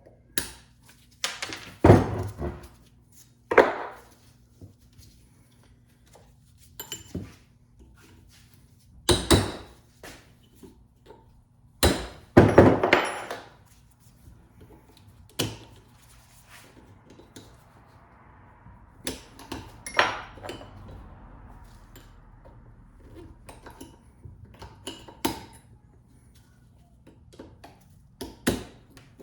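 Tools working the steel U-joint retaining clips off a double cardan driveshaft: irregular sharp metal knocks and clinks, several ringing briefly, with quieter clicks and scrapes between.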